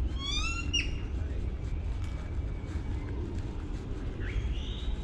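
A bird calling outdoors: a rising squeaky call in the first second, then another rising call about four seconds in, over a steady low rumble.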